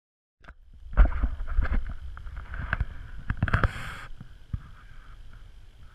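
Wind rumble and handling noise on a body-worn action camera carried along a trail, with scattered footstep scuffs and knocks, starting about half a second in; a short hiss a little past halfway.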